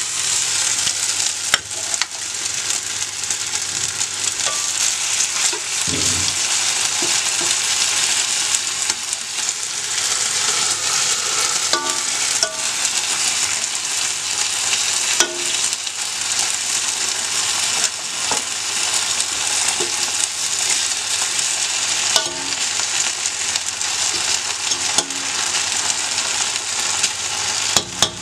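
Chicken gravy sizzling steadily in a cooking pot, with a few light clinks of a spoon against the pot.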